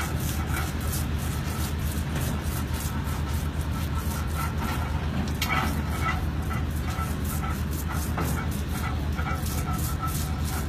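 A steady low machine hum, with a rapid patter of faint ticks over it.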